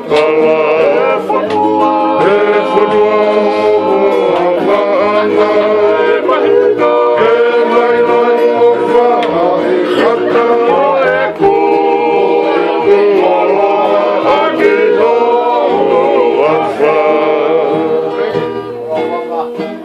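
A group of men singing together in harmony, holding long notes, over strummed guitars.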